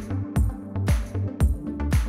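Background electronic music with a steady beat of about two strokes a second over a low bass line.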